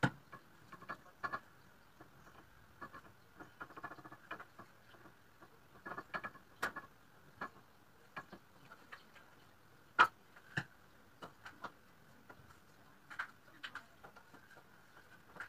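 Scattered light taps and clicks of Australian oak boards being handled and set into bar clamps on a workbench, irregular, with the sharpest knock about ten seconds in.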